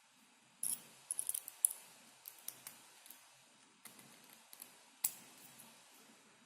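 Faint, irregular small metal clicks and ticks of hand tools working on an ISEO R6 euro dimple cylinder while it is taken apart, with a quick cluster of clicks between one and two seconds in.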